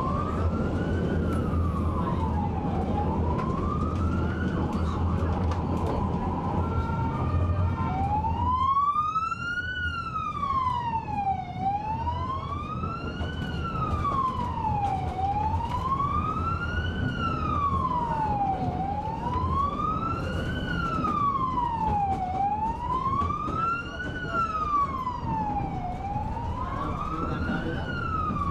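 Emergency vehicle siren in a slow wail, its pitch rising and falling smoothly about every three and a half seconds. A low rumble runs under it and drops away about eight seconds in.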